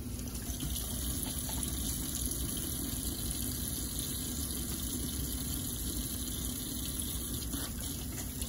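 Water running steadily from a faucet into a stainless steel sink while hands are washed under the stream.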